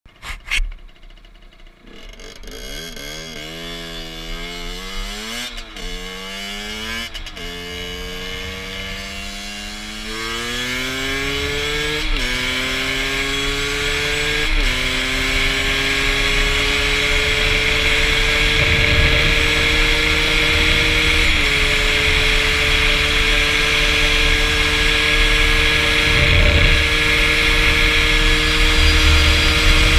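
Rieju MRT SM supermoto engine accelerating hard through the gears: the engine note climbs, drops sharply at each of about five upshifts, then holds steady at high revs near top speed. Wind noise grows as speed builds.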